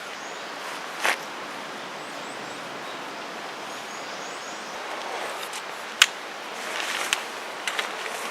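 Steady outdoor background hiss with a few sharp clicks and knocks: one about a second in and several close together near the end, the one about six seconds in the loudest. Faint short high chirps come twice, two and four seconds in.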